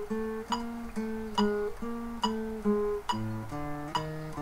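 Classical nylon-string guitar playing a slow, evenly paced technical exercise of single plucked notes, a firm note about every half second with softer ones between. About three seconds in, the lower notes drop as the pattern moves to a new position.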